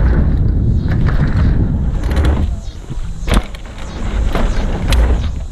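Diamondback Recoil full-suspension mountain bike ridden over a trail: a steady heavy rolling rumble, with a sharp knock a little past three seconds in and another near the end as the bike hits bumps.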